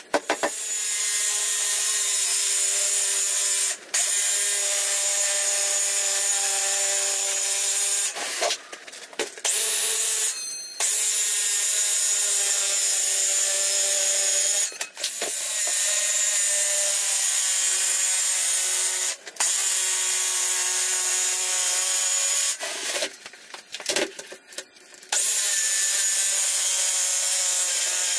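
Cordless DeWalt circular saw cutting MDF: the motor whines steadily through long cuts of several seconds each, stopping briefly between them. Knocks and clatter of the boards being handled fill the two longer pauses.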